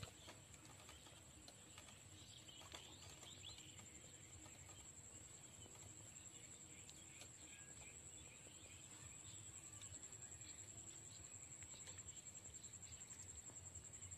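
Near silence with faint outdoor ambience: a steady high-pitched whine and a few faint bird chirps in the first few seconds.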